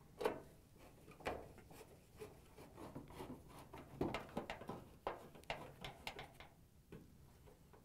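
Faint, irregular clicks and scrapes of a Phillips screwdriver driving screws into a dryer's sheet-metal front panel.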